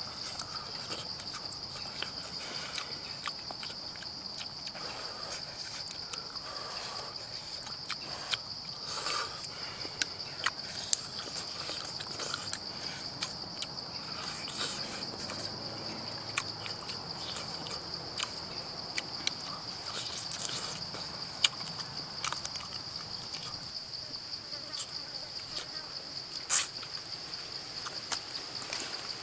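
Steady high-pitched drone of insects calling in the forest, with scattered short clicks and smacking from eating and chewing, and one sharper click near the end.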